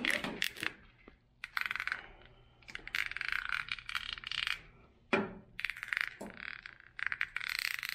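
Corrugated plastic split-loom wire cover crackling and clicking in quick bursts as gloved hands work cables into it and slide along its ribs, with a few soft handling thuds in between.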